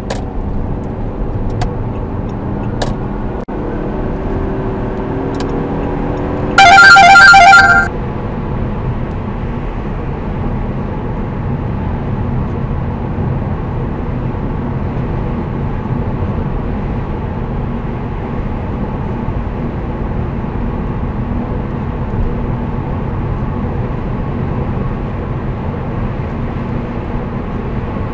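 Steady road and tyre noise inside the cabin of a 2008 Saab 9-5 2.3t, whose turbocharged four-cylinder engine note rises over the first few seconds as the car accelerates. About seven seconds in, the Garmin Dash Cam 55 sounds a loud beeping alert for about a second: its automatic lane-change (lane departure) warning.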